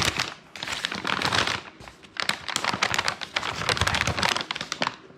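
Paper wrapper around a deli sandwich crinkling and crackling as it is handled, in a quick irregular run of small rustles and clicks.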